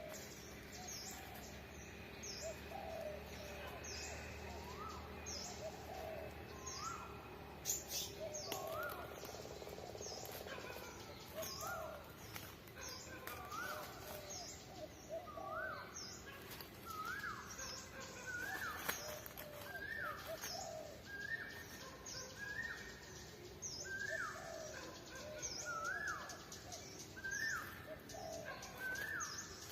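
Several birds calling at once. One repeats a short rising note about once a second, another gives high falling chips over and over, and softer chatter runs lower down.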